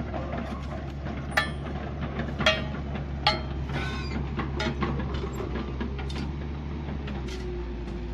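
An engine runs steadily, with a series of sharp metallic clanks and knocks at irregular intervals, the loudest in the first three seconds.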